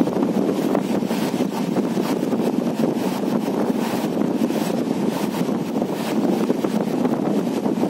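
Steady rumble of a moving train heard from a window, mixed with wind blowing on the microphone in brief gusts every half second or so.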